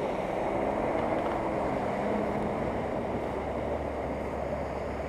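Nissan Patrol 4x4 driving through shallow floodwater: its engine runs steadily under the continuous rush and splash of water thrown up by the wheels.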